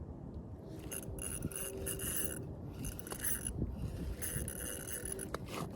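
Fishing reel being cranked in three short bursts, reeling in line, with a click near the end.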